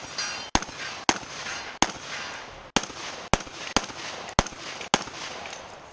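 Shotgun fired in a fast string of about eight shots, spaced roughly half a second to a second apart, each shot followed by a short echo.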